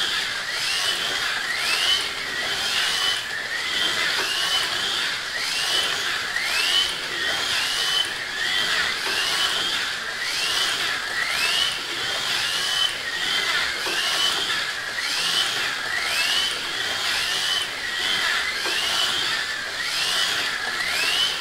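The small electric motors of 1/43 scale rally slot cars whining round the track, their pitch rising again and again about once a second as the cars accelerate, over a steady hiss.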